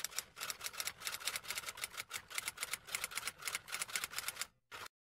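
Typing sound effect: a fast, even run of keystroke clicks, about eight to ten a second, breaking off shortly before the end.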